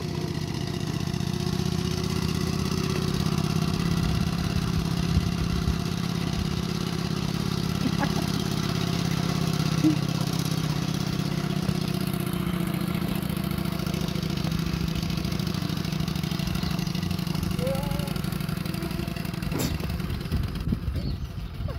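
2-inch-scale Burrell live-steam traction engine running along a road under load, towing a rider on a trolley: a rapid, steady exhaust beat with mechanical clatter from the engine and its wheels. The beat turns uneven near the end.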